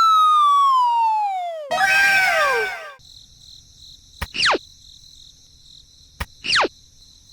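Cartoon-style whistle sound effects: one long falling whistle, then a noisy burst of several falling tones, then two quick downward swoops, each just after a click, over a faint high hum.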